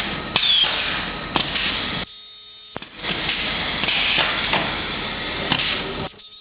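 Automatic turntable ultrasonic plastic welding machine working through its cycle: a loud, steady noisy machine sound with sharp clicks, dropping away briefly about two seconds in before starting again.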